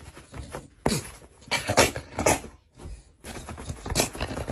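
An excited dog stomping its front paws on a bed: an uneven run of soft thumps on the mattress, with a few short dog noises between them.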